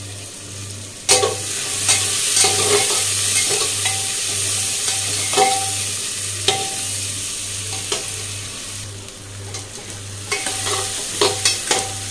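Sliced onions sizzling in hot oil and ghee in a pressure cooker while a metal spatula stirs them, knocking and scraping against the pot at irregular moments with a short metallic ring.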